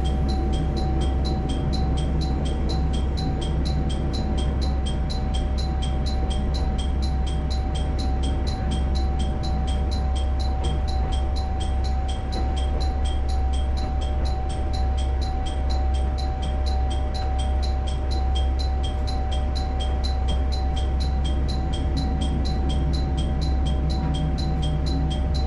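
Diesel railcar running with a steady low rumble and a constant mid-pitched hum, while an even, high-pitched ticking repeats about three times a second.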